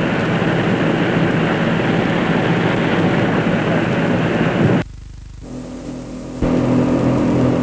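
Patrol boat's engines running under way, a steady drone under a dense rushing noise. The sound drops away abruptly about five seconds in and returns a second and a half later, steadier.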